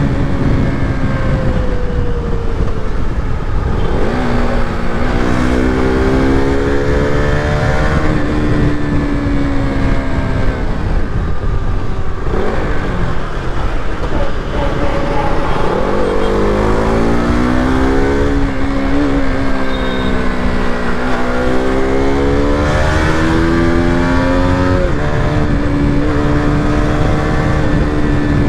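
KTM RC 200's single-cylinder engine running under way, its pitch climbing as it accelerates and dropping back several times, then holding steady near the end, over a steady rushing noise.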